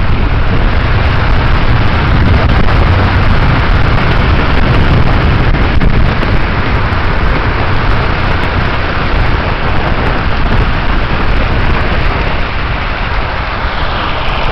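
Car driving through a flooded street, heard through its open window: a loud, steady rush of tyre, water and road noise, with wind buffeting the microphone.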